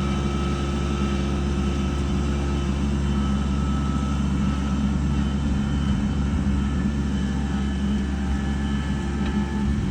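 An engine running steadily at an even speed, a low drone that holds the same pitch throughout.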